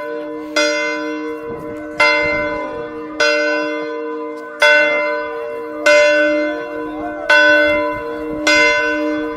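A large bell rung by pulling its rope, striking seven times about every 1.3 seconds. Each stroke rings on into the next over a steady low hum.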